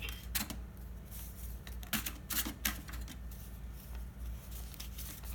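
A few scattered sharp plastic clicks and clacks from a toy cash register being handled, its keys or drawer worked, with a couple of taps close together about two seconds in.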